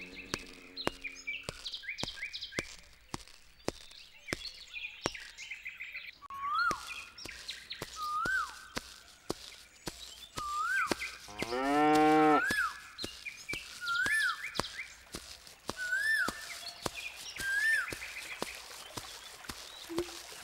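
A cow moos once, a drawn-out call about midway that is the loudest sound. Around it, a bird repeats a short whistled note that rises and dips every second or two, with other chirps and a scatter of sharp clicks.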